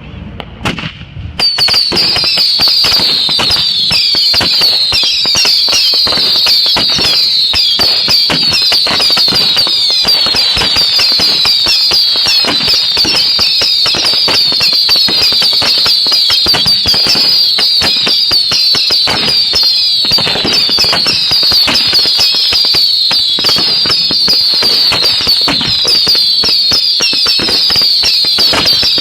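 Fireworks barrage: a couple of bangs, then from about a second and a half in a dense, continuous crackling with many overlapping shrill whistles, each falling in pitch, keeping on without a break.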